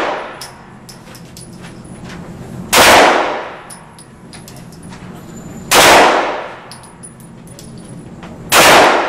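Glock 19 9mm pistol fired in slow, deliberate single shots: three sharp reports about three seconds apart, each followed by a short echo.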